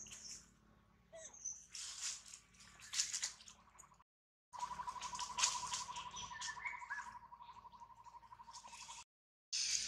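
Dry fallen leaves crackling and rustling under moving macaques. After a sudden cut, a steady, rapid trill at one pitch runs for about four and a half seconds from a bird or insect, with a short higher chirp in the middle.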